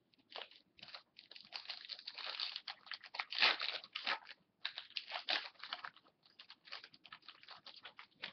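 Foil wrapper of a hockey card pack crinkling and crackling as it is torn open and the cards are slid out: a quick, dense run of crisp rustles with a short break about four and a half seconds in.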